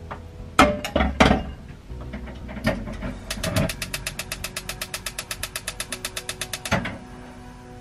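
A pot of water set down on a gas stove's metal burner grate with a few clanks, then the stove's igniter clicking rapidly, about ten clicks a second for some three seconds, ending in a thump as the burner is lit.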